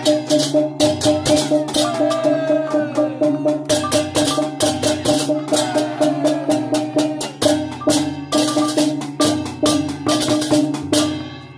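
Balinese gamelan accompanying a barong dance: hand-held cymbals clash in a fast, dense rhythm over drums and ringing metal tones. The music breaks off shortly before the end.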